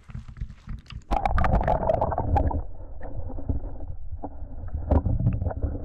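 Camera dipped into shallow lake water: a burst of splashing about a second in, then muffled, low underwater water noise as the submerged camera moves.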